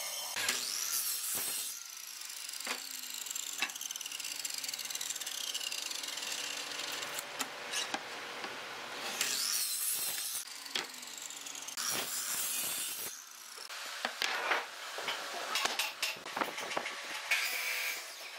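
Power saws cutting wood in several short bursts: a band saw and a sliding compound miter saw. Between cuts a motor whine falls slowly in pitch as a blade winds down, with knocks from boards being handled.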